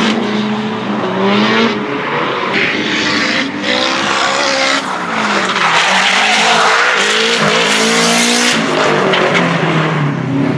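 Drift cars' engines revving hard, the pitch rising and falling again and again as they slide through the corners, over the skid and squeal of the tyres.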